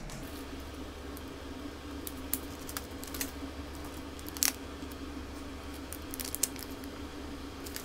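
A few scattered crinkles and clicks of a plastic sachet being handled and opened, over a steady low hum.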